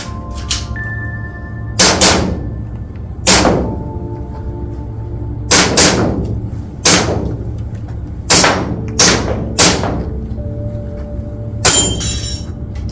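Airsoft pistol fired in a course of fire: about nine sharp shots, mostly a second or so apart with a few quick pairs, each with a short ringing tail. Background music plays under them.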